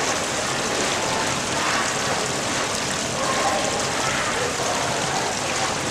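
A steady rushing hiss, like falling or flowing water, that keeps an even level throughout.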